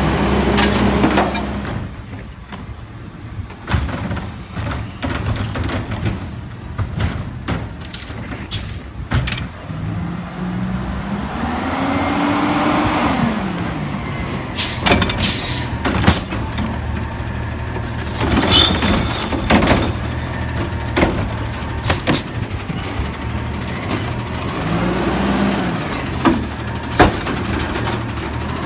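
Diesel engine of a McNeilus front-loader garbage truck idling, revving up and back down twice as its hydraulics work the arms and the Curotto Can. Repeated metallic clanks and bangs come from the can and the loading of the toilet.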